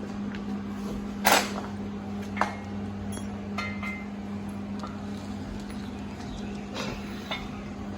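A few light metallic clinks and knocks, some leaving a brief ringing tone, as a camshaft is eased by hand into the engine block's cam bearings; the loudest knock comes about a second in. A steady low electrical hum runs underneath.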